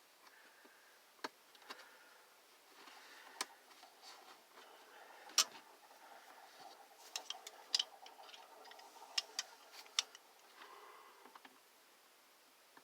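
Scattered sharp clicks and knocks of the plastic housing of a space heater being handled and fitted back together, with faint rustling between them; the loudest knock comes about five seconds in, and a run of clicks follows from about seven to ten seconds.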